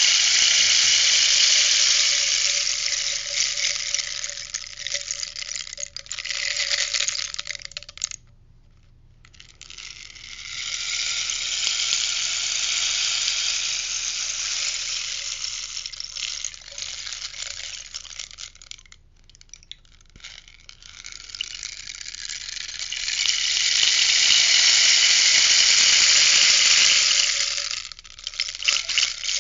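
Rainstick being tipped, its pebbles or seeds cascading down the inner spines in a long rushing patter like rain. Three long pours, each fading out before the stick is turned over again, with short gaps at about 8 and 20 seconds.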